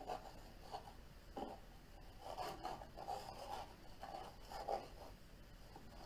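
Oil paint being applied to canvas: a painting tool making a series of short, irregular scratchy strokes and dabs, faint.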